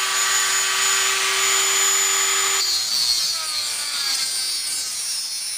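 Handheld rotary tool with a cutting wheel grinding into a hard drive's metal casing, a steady high whine and hiss. A little over halfway through the grinding stops and the tool's whine carries on weaker, falling in pitch.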